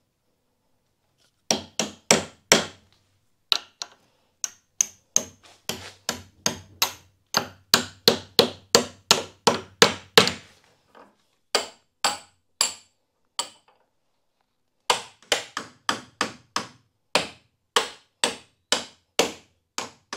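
Hammer blows on a wooden gate as its metal hinge straps are fixed on: repeated sharp strikes, about two a second, in three runs with short pauses between them.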